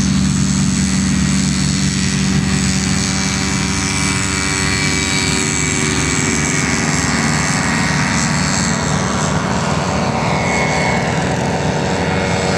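Aerolite 103 ultralight's engine and propeller running at takeoff power as it rolls, lifts off and climbs past. The pitch falls over the last few seconds as it goes by and away.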